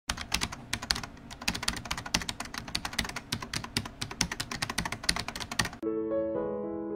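Rapid, irregular computer-keyboard typing clicks, a sound effect for a text reveal, stop about six seconds in. Soft electric piano music then begins.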